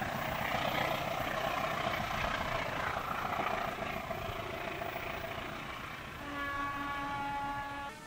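Passenger train running away along the track, its rumble and rail noise slowly fading. About six seconds in, a train horn blows a steady chord-like note for nearly two seconds, cut off abruptly.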